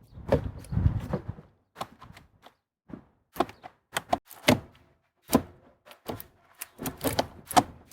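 A screw being driven home to fix an automotive blower motor control unit in place: a low rumbling noise for about the first second, then irregular sharp clicks and knocks of a hand tool on metal and plastic.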